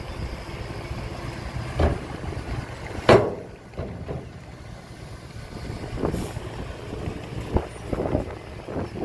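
Heavy truck engines running at a worksite, a low steady rumble broken by several sharp knocks, the loudest about three seconds in.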